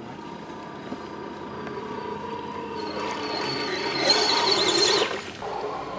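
Electric motor and gearbox of an MST CFX RC crawler with a Jeep Wrangler body, whining steadily as it drives through deep water. Water churns and splashes around it, growing louder from about three seconds in and loudest near five seconds, then dropping off.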